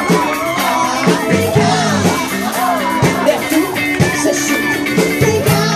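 Cover band playing a rock song: a sung lead vocal over guitar and a steady drum beat.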